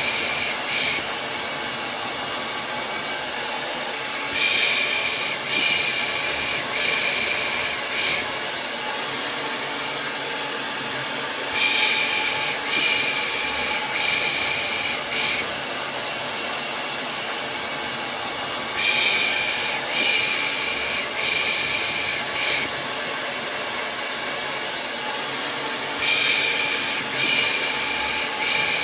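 Steady hair dryer white noise, overlaid with rhythmic 'shh' shushing to lull a baby to sleep. The shushes come in groups of about four quick 'shh's, a group starting about every seven seconds, four times.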